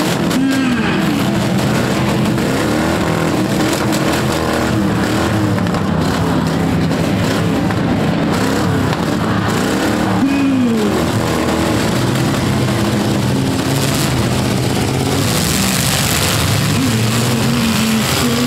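Several demolition derby cars' V8 engines running together, revving up and down.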